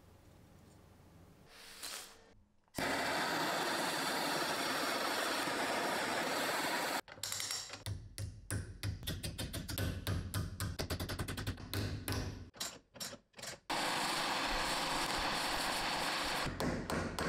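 A gas torch flame hissing steadily, cut in the middle by a quick run of hammer strikes on a small steel part held in pliers on a bench vise. The torch hiss returns, and the hammering starts again near the end.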